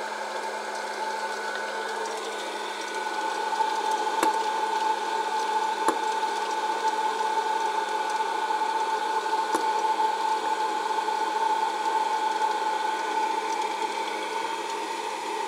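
Presto PopLite hot air popcorn popper's fan blowing steadily with a whine that grows louder about three seconds in, with a few sharp clicks scattered through it.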